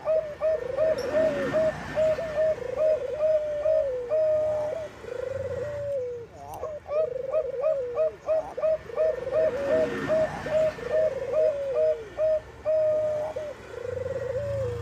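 Zebra dove (Bangkok perkutut) cooing: rapid runs of short staccato coos alternating with longer trilled coos that drop in pitch, the phrase repeating twice.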